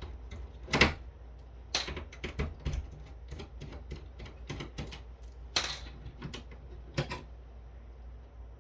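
Irregular sharp clicks and clacks of hard parts and tools being handled while an electronics unit is taken apart, the loudest about a second in, with a slightly longer rattle near six seconds.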